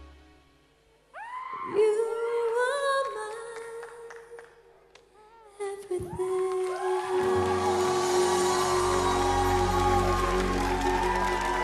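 Solo female vocalist singing the closing lines of a slow pop ballad: the band drops out and she sings a short, nearly unaccompanied phrase, then about halfway through holds a long steady note as the band comes back in and swells underneath.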